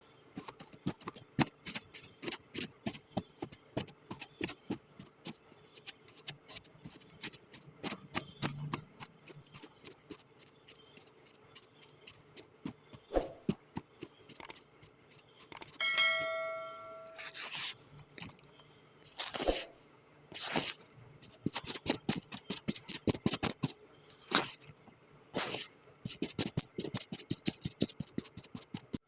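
Kinetic sand being cut with a knife, crunchy, a rapid run of crisp crackling clicks, with a few longer crumbling crunches in the second half. About 16 seconds in, a short ringing tone sounds once.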